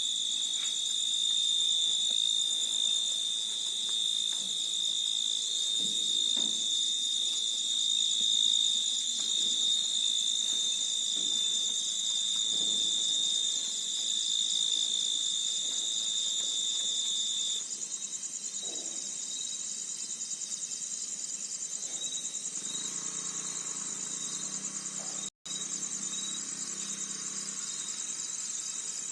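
Insect chorus: a steady, high-pitched, unbroken trill. It gets quieter about two-thirds of the way through, and there is a brief dropout near the end.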